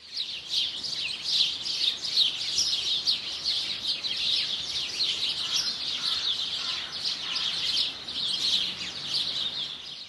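A dense chorus of many small songbirds chirping and twittering together, short high chirps overlapping without a break.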